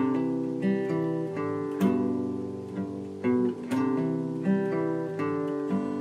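Background music: an acoustic guitar playing a tune of plucked notes.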